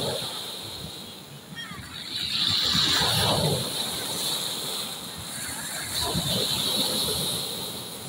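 Sea waves breaking and washing up a pebble beach, the surf swelling in three times, loudest about three seconds in.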